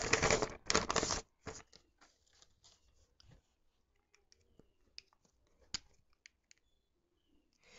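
A sheet of paper rustling and crinkling as it is handled and laid flat on the desk, mostly in the first second or so, followed by a few faint clicks.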